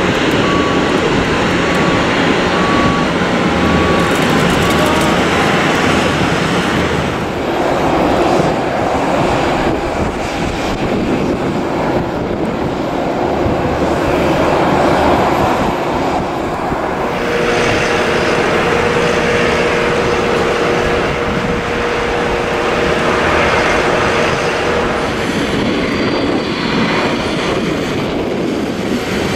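Jet airliner engines running loud and steady as planes land and taxi on the runway. A steady engine whine comes in about halfway through and fades out later on.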